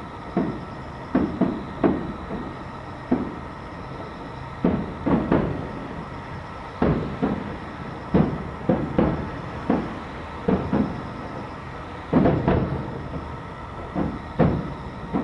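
Aerial firework shells bursting: an irregular run of booms, each one echoing, coming every half second to second and a half, with the heaviest cluster about twelve seconds in.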